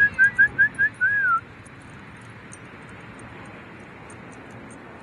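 A person whistling to call a dog: six short rising whistle notes in quick succession, then one longer wavering note, over in about a second and a half.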